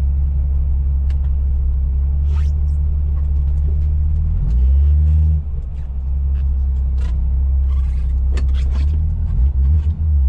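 1975 Plymouth Duster's slant-six engine running at low revs, heard from inside the cabin, with a brief rise in revs about halfway through that drops back. Scattered light clicks and ticks over it, more of them near the end.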